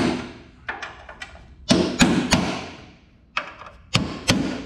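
Hammer striking a punch to knock drilled-off rivets out of a headlight mount on a vehicle's steel body: about nine sharp metallic strikes in irregular groups, each ringing briefly.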